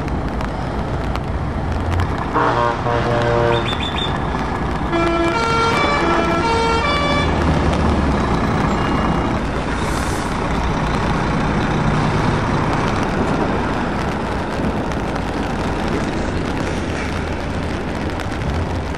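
Heavy truck diesel engines running as a Volvo FH tractor unit pulls a low-loader trailer past. A multi-note musical air horn sounds twice in the first seven seconds, and there is a short hiss of air about ten seconds in.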